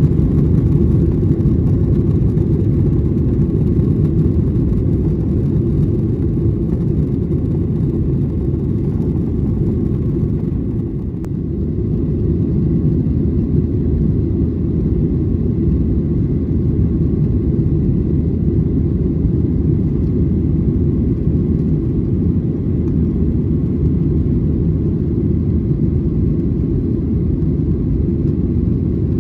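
Steady low roar of a jet airliner's engines and airflow heard inside the cabin while climbing after takeoff. It eases slightly for a moment about eleven seconds in.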